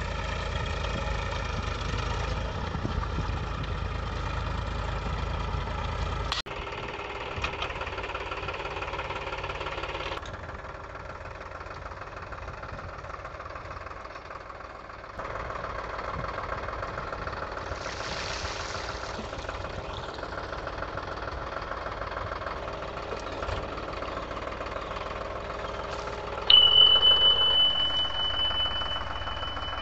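Powertrac Euro 47 tractor's diesel engine running steadily under load as it pulls a puddler and leveler through wet paddy, the sound changing abruptly a few times. Near the end a bright, steady chime starts suddenly and rings for about two seconds, the loudest sound here: a subscribe-button sound effect.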